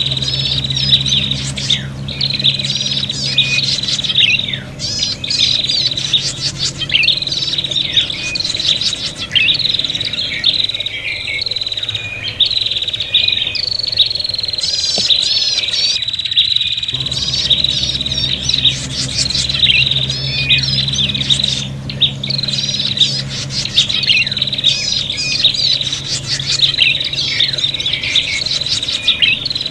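Prinias (prenjak) calling excitedly and without pause: long high notes and fast, chattering trills that overlap and repeat every second or so. It is the agitated, quarrelling chatter of birds squabbling with each other, the kind used to lure wild prinias in.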